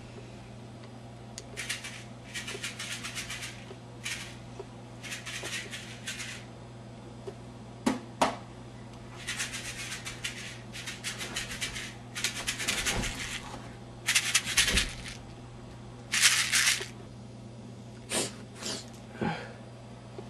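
Repeated short bursts of rustling and scuffing, each under a second long, with a few sharp knocks, over a steady low electrical hum.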